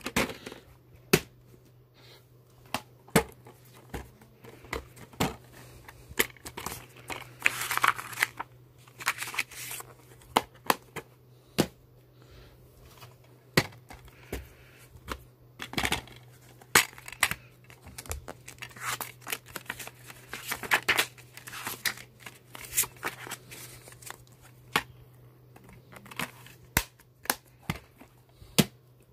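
Plastic VHS cassette sleeves and DVD cases being handled: picked up, turned over and set down, with irregular sharp clicks and knocks of plastic and short bursts of rustling. A faint steady low hum runs underneath.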